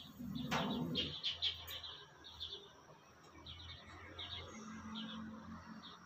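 A flock of small songbirds chirping: short, high chirps in quick little clusters, two or three clusters a second.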